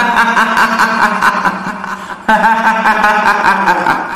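A woman's high, wavering ghostly laugh, the kuntilanak's drawn-out 'hihihi' cackle, in two long phrases, the second starting about two seconds in. A steady low drone runs beneath it.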